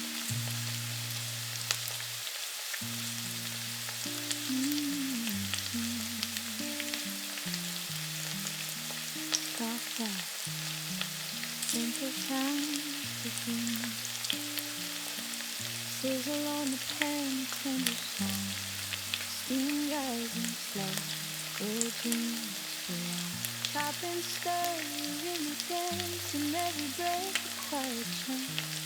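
Potato-and-chicken nuggets frying in hot oil, a steady sizzle with scattered crackling pops, over soft instrumental background music with slow bass notes and a gliding melody.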